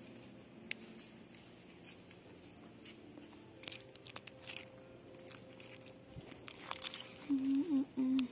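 Quiet indoor shop background with scattered light crinkling and clicking, like handled plastic packaging. Near the end, a person's voice makes a few short hums.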